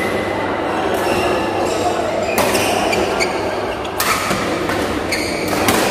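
Badminton rackets striking a shuttlecock in a doubles rally: about four sharp smacks roughly a second and a half apart, over steady background chatter in a large hall.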